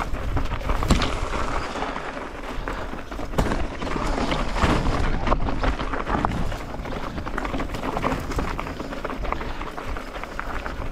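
Mountain bike rolling over a rough, stony singletrack: knobby tyres crunching on loose gravel and rock, with frequent irregular rattles and knocks from the bike, over a low rumble of wind on the microphone.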